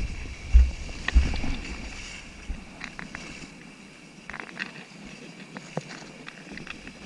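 Shallow surf and whitewash sloshing around a camera held at water level. Heavy low thumps of water against the housing come in the first second or so, then a quieter hiss and crackle of foam with scattered clicks.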